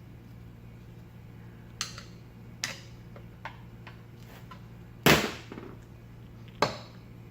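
Sharp metal knocks as tools strike the casing of an electric fan motor being pried apart: five separate hits, the loudest about five seconds in with a short ring after it, over a steady low hum.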